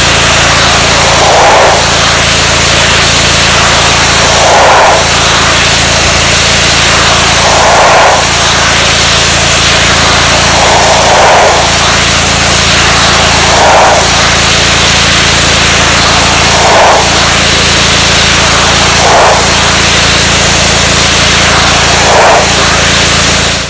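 Simpson PowerShot 3700 PSI gas pressure washer with a Honda engine running steadily at full throttle while its wand blasts a jet of water onto brick. The spray's hiss swells about every three seconds.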